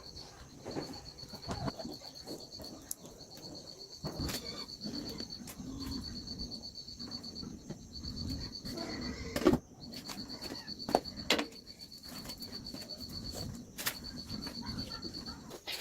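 An insect trills steadily in a high, rapidly pulsing tone that breaks off briefly a few times. A few sharp knocks and some rustling handling noise sound alongside it, the loudest knock about halfway through.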